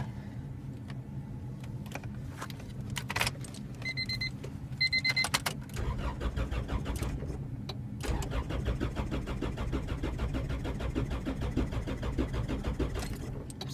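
Two short dashboard warning beeps, then the starter cranking the freshly swapped Honda B20Z2 engine in two goes of steady rhythmic turning without it firing. It is a no-start that the owner traced to the wrong firing order.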